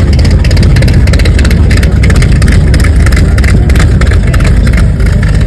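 A Shelby Cobra-style roadster's engine running loudly at low speed, with a rapid, steady exhaust beat.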